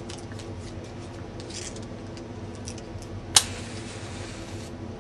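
A flame is struck to light incense: one sharp strike a little past the middle, then about a second of hiss. Faint handling rustles come before it.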